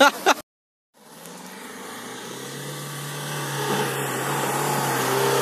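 Mahindra XUV500 SUV's engine running steadily at low revs, growing gradually louder as the vehicle approaches while crawling over dirt, after a brief cut to silence about half a second in.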